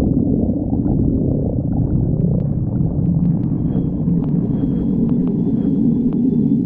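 A person's empty stomach growling from hunger: a long, continuous gurgling rumble with wavering glides in pitch in its first couple of seconds.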